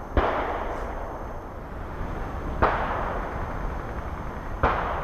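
Airsoft gunfire: three sharp shots about two seconds apart, each trailing off over about a second.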